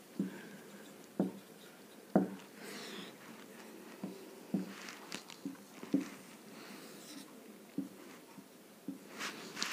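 Marker pen writing on a whiteboard: quiet scattered taps of the tip meeting the board, about one a second, with the faint rub of the strokes between them.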